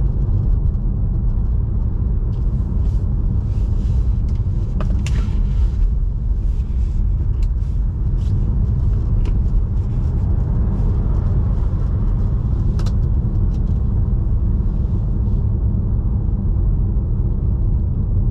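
Steady low rumble of a Tesla Model 3 driving through snow and slush on all-season tyres, the road and tyre noise of a car with no engine sound. Scattered sharp ticks and knocks come about four to six seconds in and once more near thirteen seconds.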